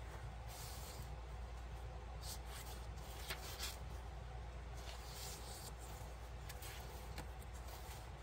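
Paper pages and inserts of a handmade journal rustling softly as they are turned and handled, with a few light paper ticks over a steady low hum.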